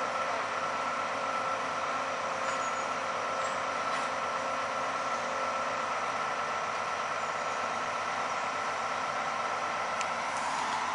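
Heavy construction plant on railway track-renewal works running steadily: an even mechanical drone with a constant high whine, with a single faint tick near the end.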